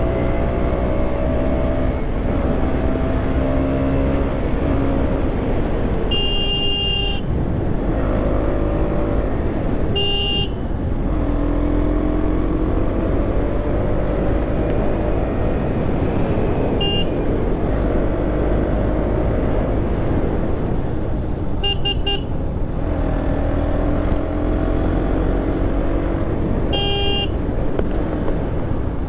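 KTM Duke 200's single-cylinder engine on a ride, revs climbing and dropping again and again through the gears. A horn sounds about five times in short toots, one of them a quick double.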